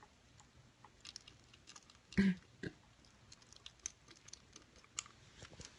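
Kitten eating wet cat food from a dish: small, irregular clicks and smacks of chewing and licking, with one brief louder sound about two seconds in.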